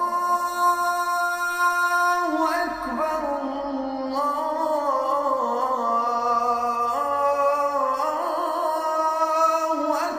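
Music of long held chords that change pitch every second or two, with no drum beat. It starts suddenly just before and fades away just after.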